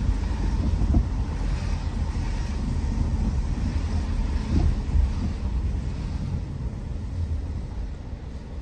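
Steady low road rumble from a car driving, with wind noise on the microphone. The rumble eases off a little near the end.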